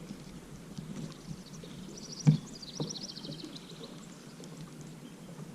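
Faint outdoor birdsong: a rapid trill of short high notes lasting a second or two, with a single sharp knock about two seconds in and a lighter one just after.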